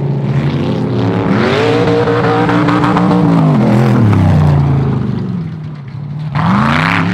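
Off-road race buggy's engine revving hard. The pitch climbs, holds, then falls away, and a second quick rev-up comes near the end.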